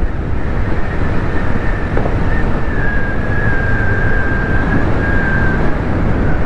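Motorcycle riding at speed on an open road: steady wind rush over the helmet-camera microphone with the engine running underneath. A thin, steady high whine sits over it through the middle stretch.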